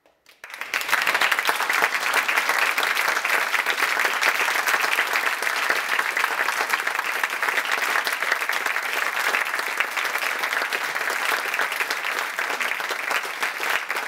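Audience applauding: dense clapping that starts suddenly about half a second in and holds steady.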